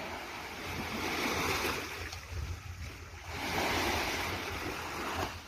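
Small waves breaking and washing up on a sandy beach, the surf swelling twice, once in the first couple of seconds and again past the middle.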